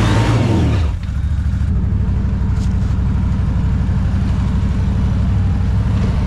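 ATV engine revving hard, dropping off about a second in, then idling steadily at low revs.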